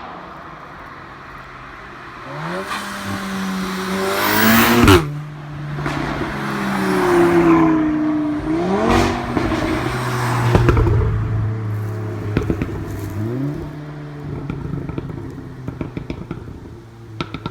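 Three Audis, a 2.5-litre five-cylinder RS3 8V and two 2-litre S3 8Vs, accelerate hard past in a drive-by. The engine notes climb and drop back several times with the gear changes, loudest about five seconds in. Exhaust pops and crackles come near the end.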